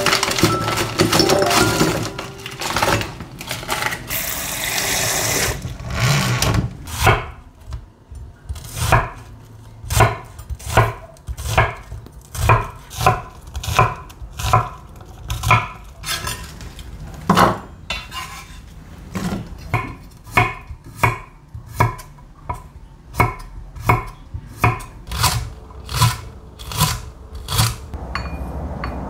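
A chef's knife chopping an onion on an end-grain wooden cutting board, with steady knocks a little more than one a second. At the start, a plastic bag crinkles and rustles as shrimp are tipped out of it into a ceramic dish.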